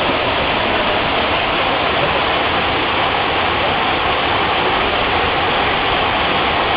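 Waterfall: a steady, loud rush of falling water with no change throughout.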